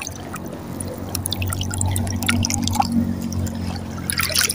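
Seawater lapping and dripping right at the microphone, the camera held at the water's surface, with many small irregular drips and splashes over a steady low hum.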